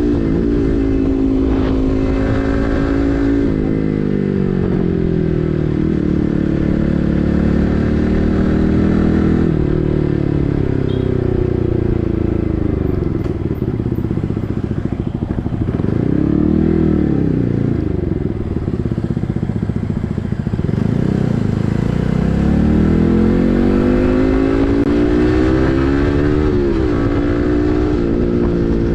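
Yamaha MT15's 155 cc single-cylinder engine through an SC Project full-system exhaust, riding along with the revs rising and falling several times as the bike speeds up and slows. There is a lower, wavering stretch a little past halfway.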